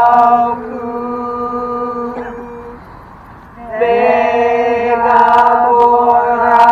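A single voice chants one long, steady, unchanging note. It drops in level about half a second in and dies away by about three seconds. After a short pause for breath, the same note comes back in with a slight upward slide and is held again.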